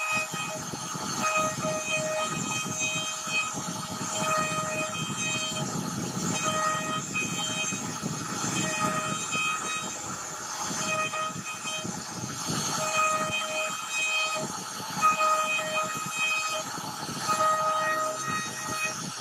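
CNC router carving a scrolled relief into a wooden board: spindle and cutter running through the wood with a pitched whine that comes and goes every second or so as the machine moves along the pattern.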